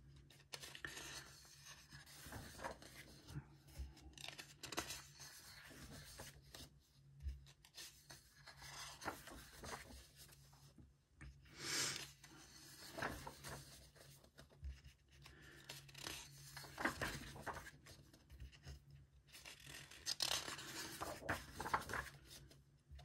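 Colouring-book pages being turned and smoothed flat by hand: soft paper swishes and rubbing, several times, with the loudest page turn about halfway through.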